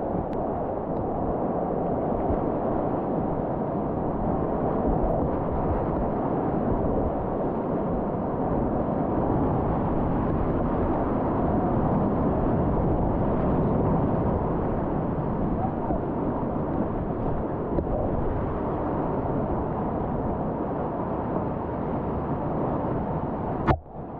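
Steady, loud rush of river rapids around a kayak, dull and low-pitched, with a sharp click and a brief dip near the end.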